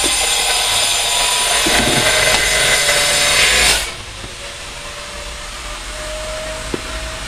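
Chopped cabbage, carrots and chicken sizzling in a hot metal wok as they are stir-fried, with a few clicks of the spatula against the pan. The sizzle is loud, then becomes quieter about four seconds in.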